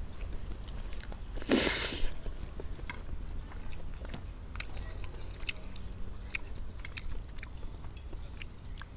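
Someone eating spaghetti: chewing and slurping noodles, with light clicks of a fork and spoon against a ceramic plate. There is a short, louder rush of noise about a second and a half in, over a steady low rumble.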